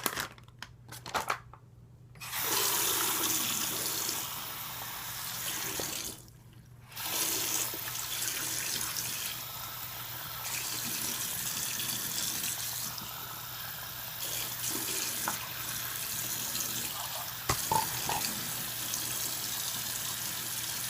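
Sink tap running as slime is rinsed under it, with a few light knocks at the sink. The water stops for about a second around six seconds in, then runs again.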